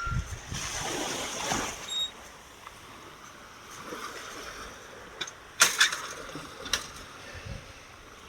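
Ocean waves washing in, a surge of rushing water in the first couple of seconds settling to a steady hiss. A few sharp clicks come just past halfway and are the loudest sounds.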